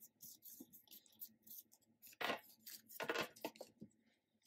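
Paper cards and small card booklets being shuffled and slid across a table. Soft papery rustles at first, then a few louder scrapes and taps about two and three seconds in.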